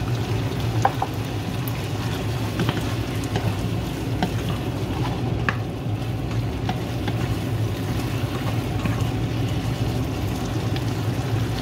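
Pork belly with tomatoes and chilies sizzling in a frying pan, stirred with a wooden spatula that scrapes and taps against the pan now and then, over a steady low hum.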